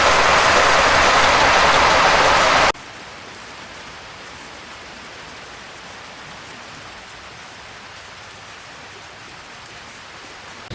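Steady rushing noise of falling or flowing water, loud at first and then cutting abruptly to a quieter, even hiss a little under three seconds in.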